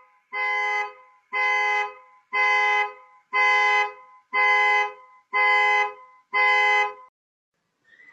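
Car horn honking in regular pulses about once a second, eight blasts in all, in the pattern of a triggered car alarm; the honks stop about seven seconds in.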